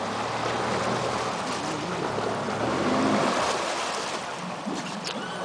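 Water rushing and splashing against an aluminium river boat, over the low hum of an idling outboard motor that fades about a second in; the splashing swells around the middle.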